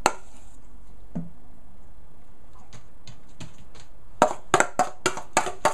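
One sharp click, then a quiet stretch with a few faint ticks, then a quick run of sharp clicks and taps, several a second, starting about four seconds in.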